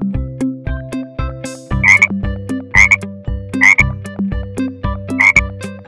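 Frog croaks, about one a second starting about two seconds in, over a bouncy looped backing track with a steady beat.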